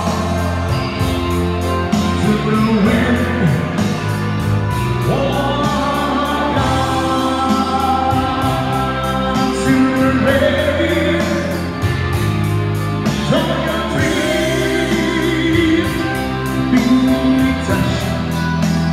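Live party music: sung medley over accompaniment with a steady beat.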